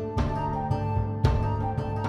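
Background music: acoustic guitar with a steady strummed beat.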